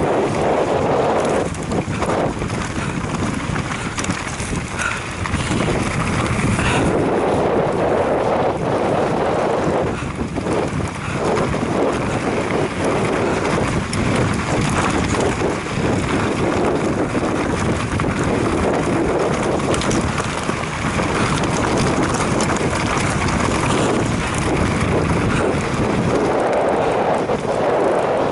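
Wind rushing over the microphone of a camera riding a fast mountain-bike descent, with the rattle and jolts of tyres over rough dirt and stones.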